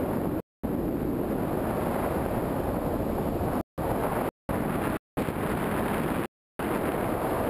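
Wind rushing over the camera microphone during a descent under an open parachute canopy, a steady roar that cuts out to total silence briefly several times.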